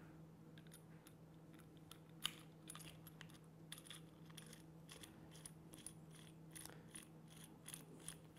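Faint, scattered metallic clicks and taps of a 19mm nut and the lock's tool being worked onto a lock cylinder, over a low steady hum, with one sharper click about two seconds in.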